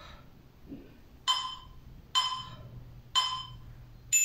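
Workout interval timer counting down: three short ringing tones about a second apart, then a higher tone near the end marking the end of the exercise interval.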